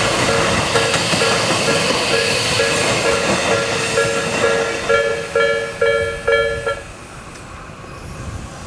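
Japanese railway level-crossing alarm (Tobu-type electronic bell, 'Tobu sound B') dinging about twice a second as the rushing noise of a passing Tokyo Metro 18000 series train fades away. The bell stops about seven seconds in, signalling that the train has cleared the crossing.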